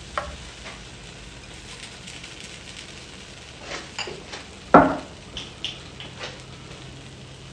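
Gazpacho sizzling faintly in a hot oven dish, with a few short knocks of dishes being handled; the loudest knock comes just under five seconds in.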